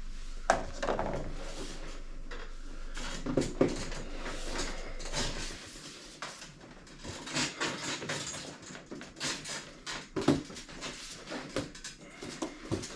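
Plastic trim parts and clips being handled and pressed into place: scattered light clicks and knocks with rustling in between, and a faint low hum that cuts off about halfway through.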